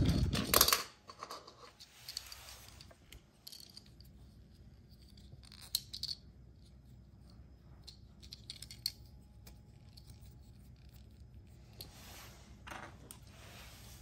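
Small plastic and die-cast toy vehicles being handled: a loud clatter and knock right at the start, then scattered light clicks and scrapes of plastic parts.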